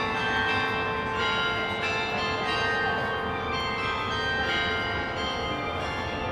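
A peal of tower bells ringing, one strike after another in quick succession, their tones overlapping and ringing on.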